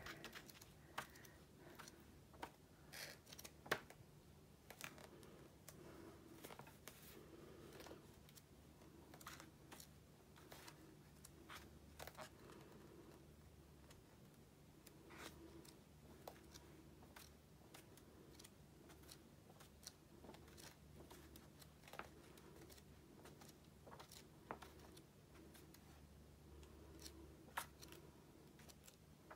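Faint paper sounds of a book's pages being turned and handled: scattered soft rustles and light taps, with a faint steady low hum underneath.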